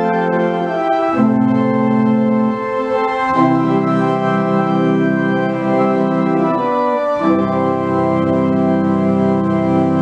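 Organ music: slow, sustained chords held for a few seconds each, changing about a second in, again a little past three seconds, and again around seven seconds.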